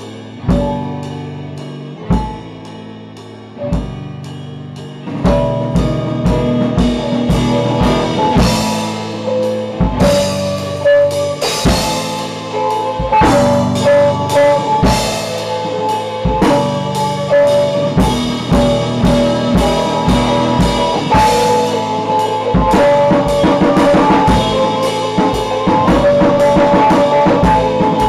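Rock band rehearsing: drum kit with electric guitars. A few single accented hits ring out about a second and a half apart, then about five seconds in the full band comes in and plays on with a steady drum beat.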